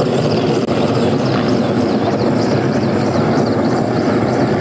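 Helicopters flying low overhead, their rotors beating steadily and loudly.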